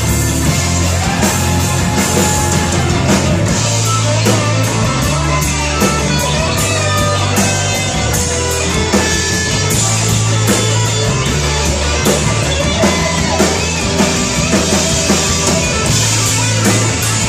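Live rock band playing an instrumental passage: a lead electric guitar with bending, sliding notes over a steady bass line and drum kit.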